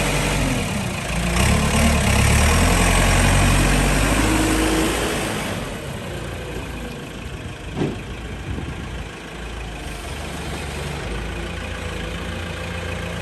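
Engine of a piece of construction equipment running, louder for about the first five seconds, then dropping to a lower, steady idle. A single short knock sounds near the middle.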